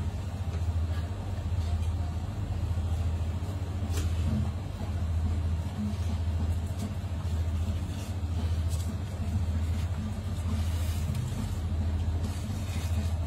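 A steady low rumble that swells and eases slightly every second or two, with a few faint ticks about four and nine seconds in.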